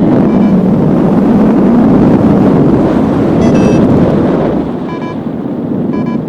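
Strong wind rushing over the microphone in paragliding flight, easing a little about five seconds in. Short electronic beeps from a flight variometer cut through it, a higher-pitched pair about three and a half seconds in and single beeps about a second apart near the end.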